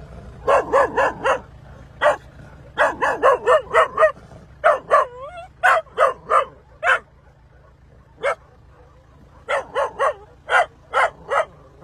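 A young dog yelping in short, high-pitched barks that come in quick runs of three to six, a few drawn out into brief whines. A low, steady engine hum runs underneath.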